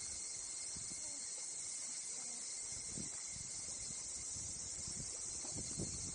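Steady high-pitched drone of an insect chorus, with scattered low bumps and rumble on the microphone.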